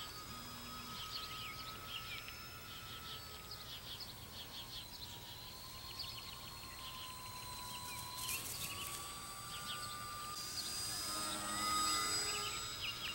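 1300 kV brushless electric motor of an RC slow-flyer plane whining in flight, its pitch sagging slowly and then climbing back with the throttle, while birds chirp. Near the end a louder rush of noise comes in.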